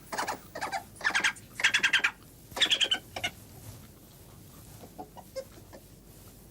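Badgers calling: several short bursts of rapid, high-pitched chittering squeals in the first three seconds, then only faint scuffling ticks.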